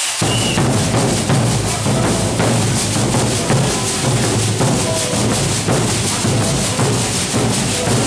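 Congado Moçambique percussion: large double-headed bass drums beaten with sticks together with patangome metal disc rattles, starting abruptly and keeping up a steady, dense beat.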